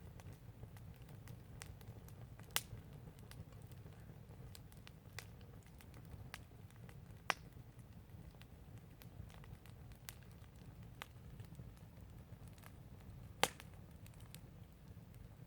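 Garden fire crackling: scattered sharp pops, with three louder ones about two and a half seconds in, about seven seconds in, and near the end, over a faint steady low rumble.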